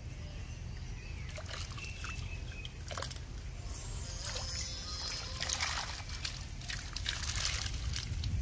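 River water trickling, splashing and dripping as a fine-mesh ring net trap is pulled up out of the water and drains through the netting, with splatters coming thicker in the second half.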